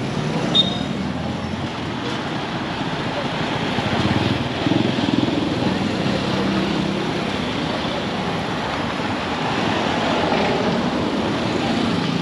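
Road traffic: steady traffic noise with a vehicle engine running close by, louder from about four seconds in, and a brief high tone about half a second in.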